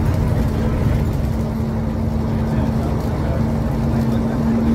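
Scania L94UA articulated bus heard from on board while under way: a steady low engine and road rumble with a constant hum over it.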